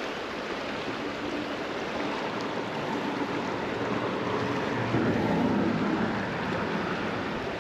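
Steady rushing of water and wind around a bridge, the tidal current running fast beneath it. A faint low hum swells a little about five seconds in.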